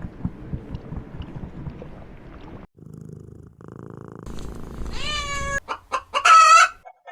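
Domestic cat purring, a low, rapidly pulsing rumble, for the first few seconds. After a short break come brief pitched calls, the loudest about six seconds in.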